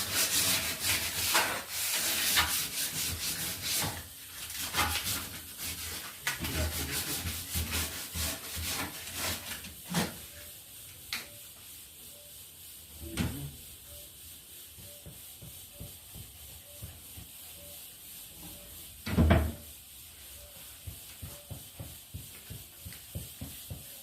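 Sandpaper rubbed back and forth over wood in quick, repeated strokes, stripping the old finish, for about the first ten seconds. After that come a few separate knocks, the loudest about three-quarters of the way through.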